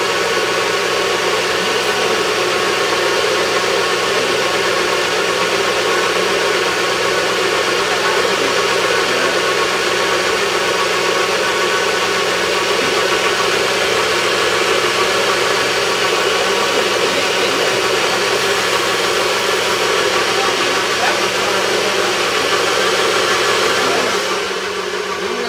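NutriBullet personal blender motor running steadily, blending a berry mixture in its cup: a loud, even whir with a steady hum. The sound drops off shortly before the end.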